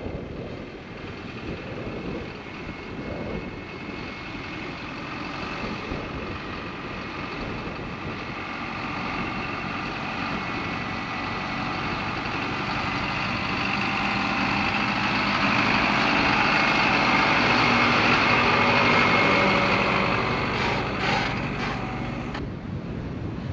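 Isuzu NPS 4x4 truck's diesel engine and tyres on a dirt track as it tows an off-road caravan up and past. The sound builds steadily, is loudest about three-quarters of the way through, then falls away, with a few short knocks as the rig goes by.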